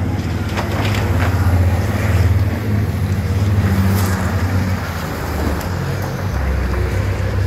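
Racing buses' engines running as they drive round the track, a loud, deep, steady drone that shifts in pitch as a coach passes close near the end. A few short knocks are heard about half a second, a second and four seconds in.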